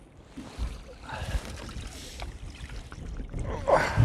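A lobster pot being hauled up to a small boat: low knocks and handling noise with some water sound.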